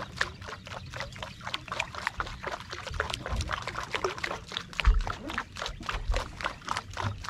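Water lapping and splashing against the hull of a small fishing boat: a quick, irregular run of small splashes and drips, with a few low bumps.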